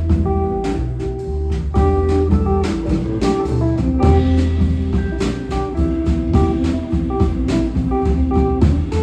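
Jazz-style instrumental music: plucked guitar notes over a bass line with regular drum and cymbal strokes.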